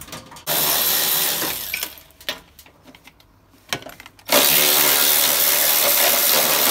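Power tool spinning a socket on an extension to turn a front-suspension height-adjusting bolt under a Toyota Hiace van, raising its nose. It runs in two bursts: a short one about half a second in, then a longer steady one from about four seconds on.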